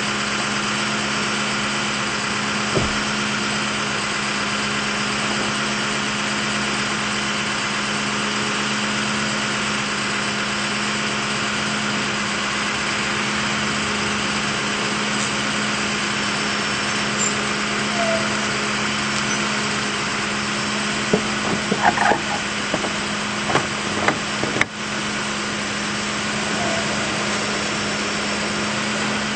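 Engine running steadily at a constant pitch, a continuous hum, from the tree-cutting equipment. About three quarters of the way through comes a short cluster of sharp knocks.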